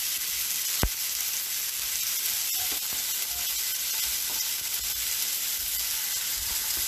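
Steak and asparagus sizzling in a hot pan, a steady frying hiss with a sharp click about a second in.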